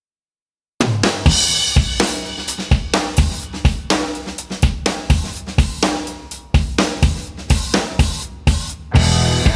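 Rock music with a full drum kit: a steady beat of kick and snare with cymbals, starting abruptly after a moment of dead silence.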